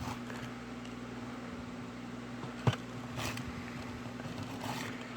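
Steady low hum in a small room, with one sharp click about two and a half seconds in and faint handling rustles toward the end.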